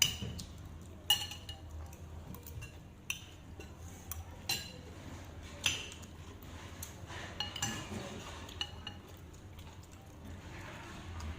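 Metal utensils clinking against dishes, a scattered run of sharp clinks about every second or two over a low background hum.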